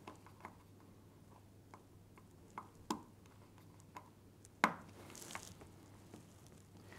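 Faint, scattered clicks and taps of a small insulated screwdriver working the terminal screws of a plastic cable connector while the earth wires are fitted, with one sharper click a little past halfway and a brief soft hiss just after it.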